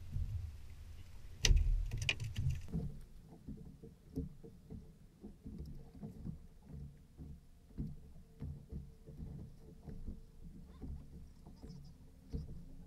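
Small waves slapping against the fibreglass hull of a bay boat, an irregular run of low knocks and splashes, with one sharp thump about a second and a half in that is the loudest sound. A faint steady hum from the bow-mounted trolling motor runs underneath from about three seconds in.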